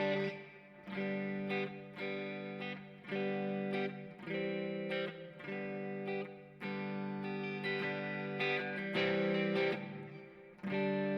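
Gibson ES-339 semi-hollow electric guitar on its neck pickup, a '57 Classic humbucker, played clean through a Kemper amp profile with the guitar's volume rolled back. Chords are struck about once a second, each left to ring until the next.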